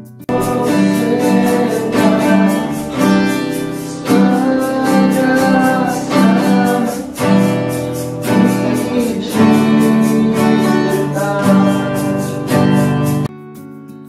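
Music: an acoustic guitar strummed in a steady rhythm with singing over it, starting abruptly just after the start and cutting off suddenly about a second before the end, leaving a quieter guitar.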